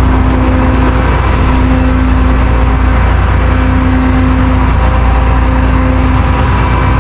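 Truck engine running steadily with a deep, loud rumble and a faint tone that comes and goes.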